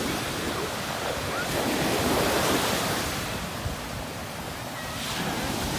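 Ocean surf washing onto a beach, a steady rush that swells about a second and a half in and then eases off.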